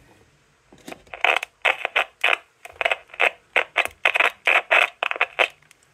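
An Olson MK160 amplified CB microphone heard through a mic tester's small speaker: scratchy, distorted bursts of noise with no low end, coming and going two or three times a second like garbled speech. The output is badly garbled because the mic doesn't suit the adapter it is plugged through.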